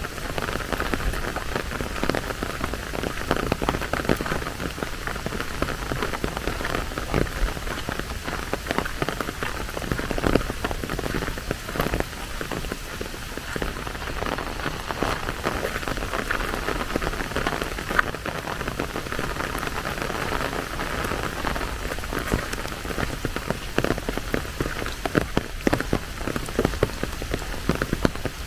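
Steady rain falling, with many close raindrops ticking sharply over an even hiss.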